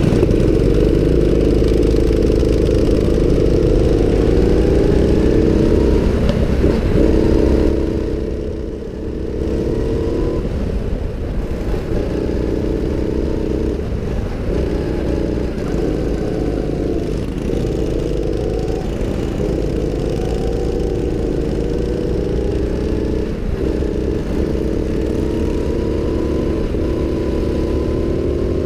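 Go-kart engine running hard from on board the kart, its pitch rising and falling with the throttle through the corners. The engine briefly quietens about eight seconds in, then picks up again.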